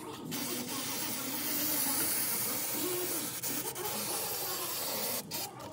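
A pressurised jet hissing steadily for about five seconds, stopping shortly before the end.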